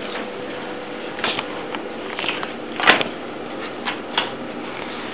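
A knife knocking against a cutting board as raw fish is cut into pieces: a few short, sharp knocks, the loudest about three seconds in, over a steady room hiss with a faint hum.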